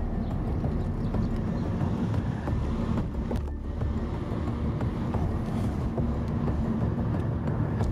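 Toyota Prius driving along, heard from inside the cabin: a steady low rumble of road and tyre noise with a faint hum.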